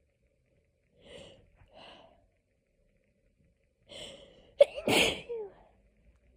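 A person in a hay-fever sneezing fit: two short, quieter sounds about one and two seconds in, then a catching breath and one loud sneeze about five seconds in.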